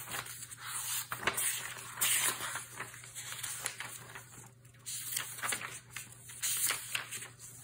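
Paper rustling with soft taps and clicks as the thin Tomoe River paper pages of a thick Hobonichi Cousin planner are turned and handled, in a few separate rustles.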